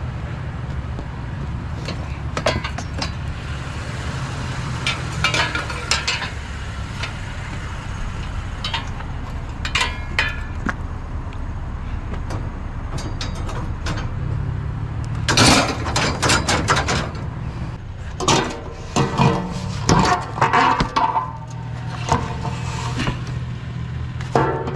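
Loose scrap metal clinking and clanking as a load is shifted and secured, with irregular knocks that come more often in the second half. A vehicle engine runs steadily underneath.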